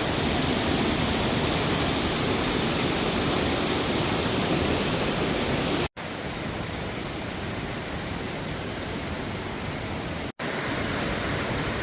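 Waterfall: a steady rush of falling water. It drops out twice for a moment, about six seconds in and again near the end, and is a little quieter after the first break.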